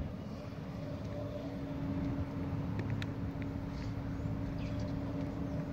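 A steady low engine rumble with a constant hum, holding an even level, and a few faint clicks about three seconds in.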